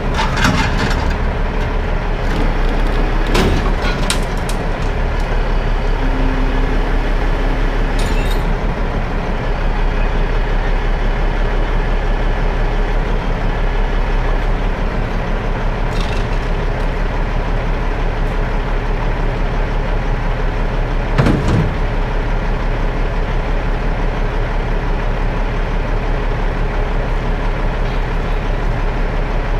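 Peterbilt V100 rotator wrecker's diesel engine running steadily while its boom lifts a bucket truck. A few sharp knocks come through, the loudest about two-thirds of the way in.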